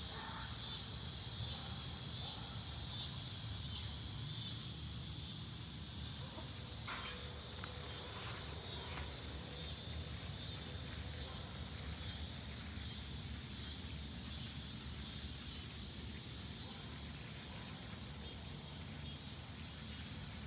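Chorus of insects singing outdoors: a steady, high-pitched buzz that pulses faintly, over a low rumble, with a couple of brief rustles about seven seconds in.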